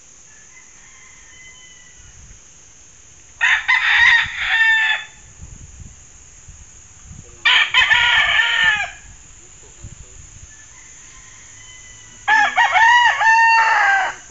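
Gamecock roosters crowing: three loud cock-a-doodle-doo calls, each about a second and a half long, a few seconds apart.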